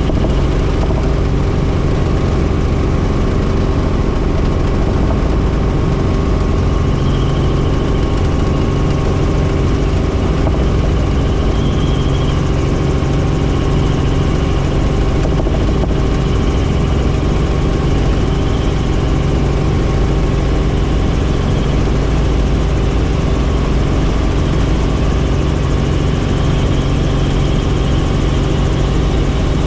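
Helicopter running with a loud, steady drone of engine and rotor, holding several unchanging tones over a constant rumble.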